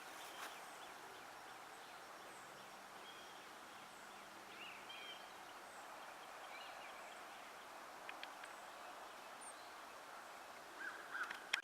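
Quiet outdoor ambience: a faint steady hiss with a few brief distant bird chirps, and a couple of small clicks near the end.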